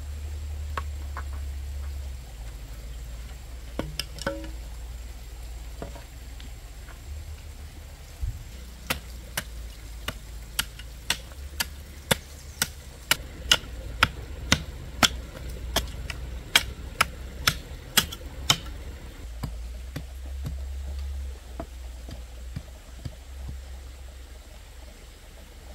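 A run of sharp, evenly spaced knocks, about two a second, starting about eight seconds in and stopping about ten seconds later, over a steady low rumble.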